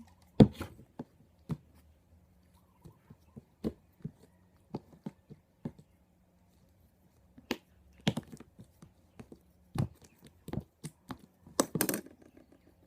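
Sticky homemade butter slime being worked by hand, giving irregular sharp pops and clicks as it pulls away from the fingers, with a quick flurry near the end. The slime is still sticky, short of activator.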